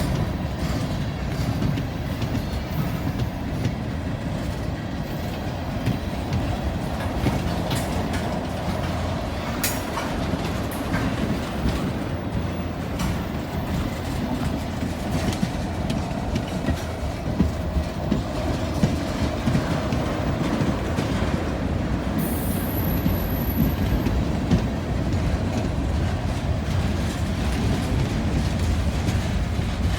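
Freight train rolling past: a steady rumble of wheels on rail with scattered clacks, and a brief high thin squeal about 22 seconds in.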